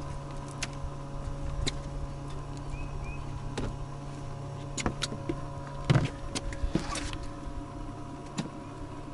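Electric boat motor humming steadily, with a dozen or so sharp clicks and knocks scattered through it.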